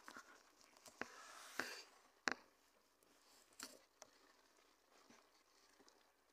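Near silence, with a few faint scattered knocks and a short hiss about a second in.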